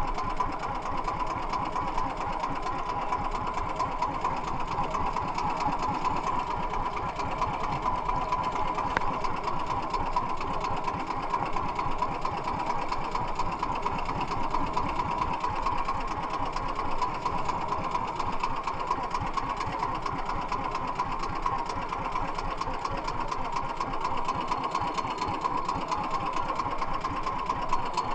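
Small outrigger fishing boat's engine running steadily with a fast, even chatter.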